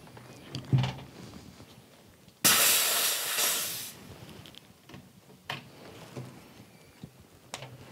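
High-pressure air hisses through the fill hose at the PCP airgun's fill port during filling, starting abruptly about two and a half seconds in and tailing off over about a second and a half. A few light handling knocks and clicks come before and after it.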